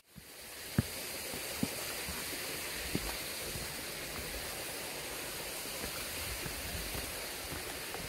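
Steady rush of a mountain stream. Three short sharp knocks stand out in the first three seconds.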